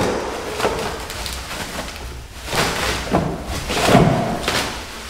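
Mower parts and packaging being handled out of a cardboard box: a few separate rustles and knocks, the loudest about four seconds in.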